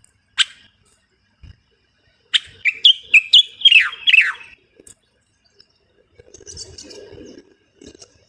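Common bulbul singing: one short call, then a quick phrase of about six loud whistled notes, several slurring downward. A faint scratchy noise follows near the end.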